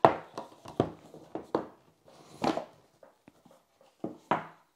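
Cardboard packaging being handled: a rigid box and its sleeve knocked and set down on a wooden table, with the box lid lifted off. There are several sharp taps and knocks, the loudest right at the start, and a longer sliding swish about halfway through.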